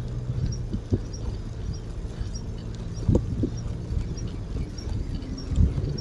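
Bicycle rolling along an asphalt path: a steady low rumble with scattered knocks and rattles, strongest about three seconds in and again near the end. A faint high tick repeats about every half second.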